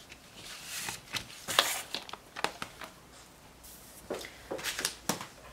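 Clear plastic stamp case and die packaging handled and set aside: a scatter of light plastic knocks and rustles, the sharpest about a second and a half in.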